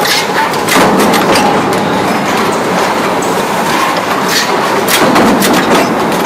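Punch presses stamping tinplate pencil-box parts: a steady, loud machine din with irregular sharp metallic clanks from the press strokes.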